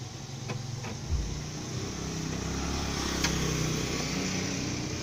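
Hindustan Contessa's diesel engine idling steadily, slowly growing a little louder, with a few light clicks over it.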